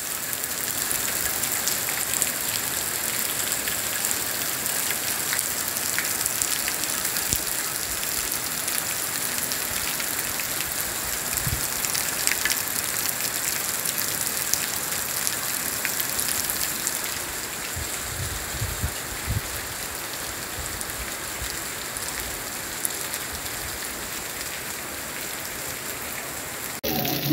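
Heavy rain pouring steadily onto clay roof tiles and a paved street, easing slightly in loudness about two-thirds of the way through.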